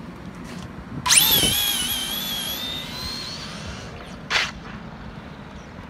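Electric RC drag car launching: its brushless motor and drivetrain let out a sudden high whine about a second in that shoots up in pitch, then holds and fades as the car runs off down the strip. A short loud rush of noise follows a few seconds later.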